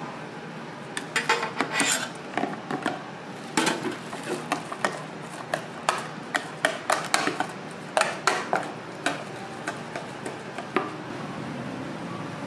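Metal wire whisk beating eggs with shredded cabbage in a plastic tub: quick, irregular clattering and scraping strokes of the wires against the tub, starting about a second in and stopping near the end.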